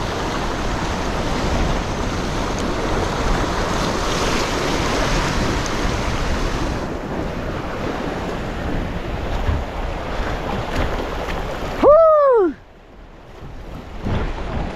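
Waves washing and foaming over a rock ledge, with wind on the microphone. About twelve seconds in, a person gives a short, loud exclamation that rises and falls in pitch, and the wash is quieter after it.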